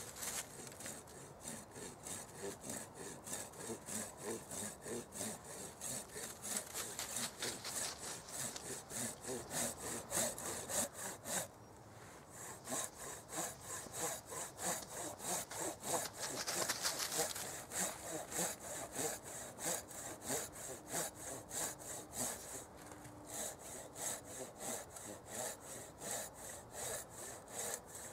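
A knife blade scraping and shaving a small wooden log in quick, even strokes, about three a second, with a short pause a little before the middle.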